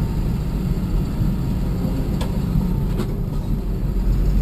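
Car driving over a rough dirt track: steady low engine and road rumble, with a couple of light knocks about two and three seconds in.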